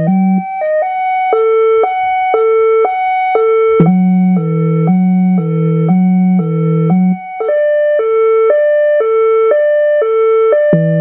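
Whelen Carbide electronic siren sounding European two-tone hi-lo patterns, two pitches alternating a little over once a second. The 'HiLo GEN' tone plays through the main siren speaker alone, then about four seconds in again with the Howler low-frequency speaker adding a deep rumble underneath. About seven seconds in it switches to the 'HiLo POL' hi-lo tone without the Howler.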